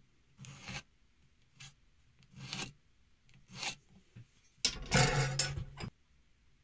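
Marking out on a beech board: four short scratchy pencil strokes along a steel square, then a longer, louder scrape near the end.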